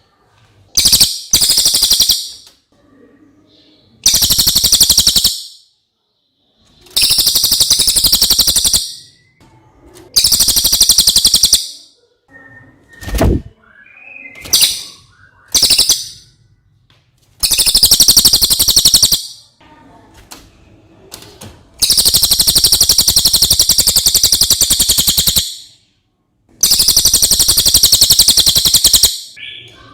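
Cililin songbird singing loud, very high-pitched rapid trilled phrases, about nine of them, each one to three seconds long, with short pauses between. There is a brief low thud about halfway through.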